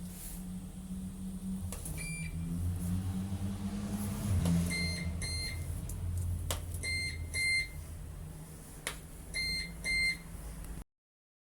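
Bus Oyster card reader beeping: a single short beep, then three double beeps, each double beep just after a click, over a bus engine idling with a low hum.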